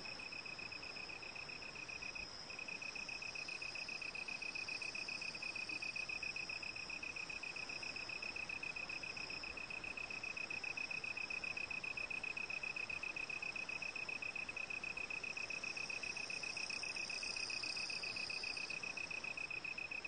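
A cricket trilling steadily, one high continuous pulsing trill that breaks off briefly about two seconds in and then carries on.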